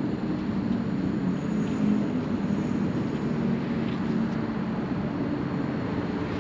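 A steady engine drone with a low hum, holding at a constant level throughout.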